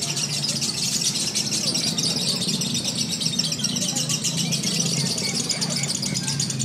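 Lovebirds in contest cages singing a long, continuous, very fast chattering trill. Many rapid notes follow one another without a break, over a low murmur of voices.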